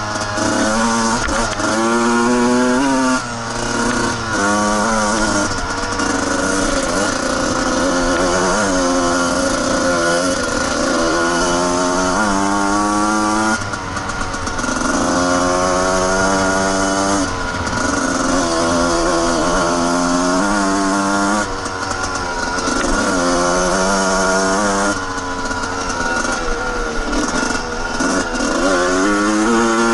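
Suzuki RM125 single-cylinder two-stroke dirt bike engine under way, its revs climbing and falling again and again as the throttle is worked.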